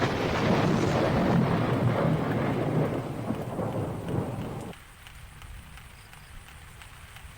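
A thunderclap that rolls on for about four and a half seconds and then cuts off abruptly, over light steady rain. After the thunder stops, only the faint rain remains.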